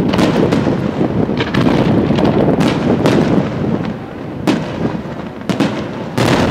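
Aerial firework shells bursting in a rapid barrage: a continuous rumble of overlapping booms with sharp bangs every half second to a second, easing a little about four seconds in before a loud bang near the end.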